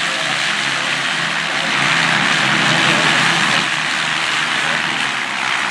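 A pack of KTM race motorcycles running hard through a bend, many engines sounding at once in a steady, loud mix.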